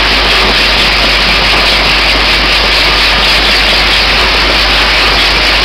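Cap feeder running, sorting plastic bottle caps at over 500 a minute: a steady, dense rattle of caps against the stainless-steel bowl and track over a constant low hum.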